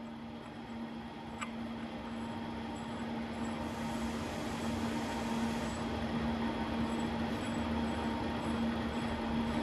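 Steady machine hum with one strong low tone, growing louder, while a large steel nut is run by hand onto a freshly cut screw thread; a single light click about a second and a half in.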